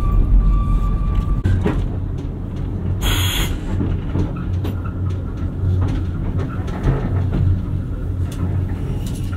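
Oigawa Railway Ikawa Line passenger coach, pushed by a diesel locomotive, running along the track: a steady low rumble with scattered clicks from the wheels and rails. A thin whine stops about a second and a half in, and a brief hiss comes about three seconds in.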